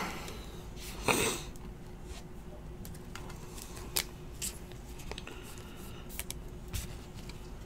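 Faint rustling and light clicks of a trading card being slid into a rigid plastic top loader and handled, with a brief swish of the card about a second in.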